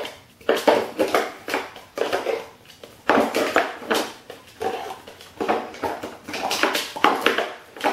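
Plastic stacking cups clattering and knocking against one another and the hard floor as a dog picks them up in its mouth and drops them onto a stack, in a run of irregular knocks.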